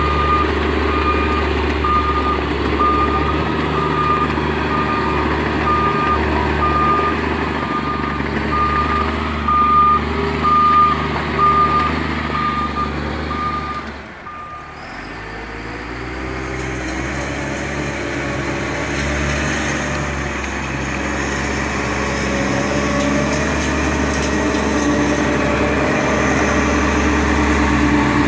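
Prinoth Bison snow groomer's diesel engine running with its reversing alarm beeping steadily. About halfway through, the beeping stops and the engine drops off for a moment, then its note climbs again as it pulls away.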